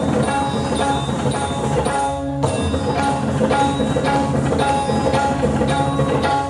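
Indian classical dance accompaniment: hand drum with melodic instruments playing a steady rhythmic pattern, briefly dropping out about two seconds in.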